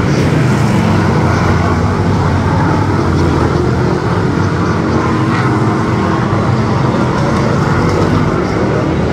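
V8 Hotstox oval racing car's V8 engine running loud at fairly steady revs.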